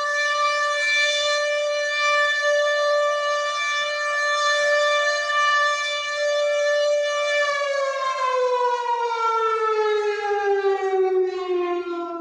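WW2-style air raid siren holding a steady wailing tone, then, about seven seconds in, winding down with its pitch falling steadily.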